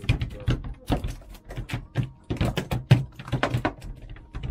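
A freshly landed fish flapping on a boat's deck mat: a quick, irregular series of slaps and thuds.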